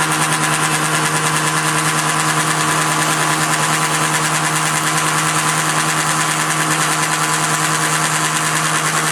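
Atlas horizontal milling machine running steadily: a constant motor-and-belt hum with a rapid, even pulse and a hiss.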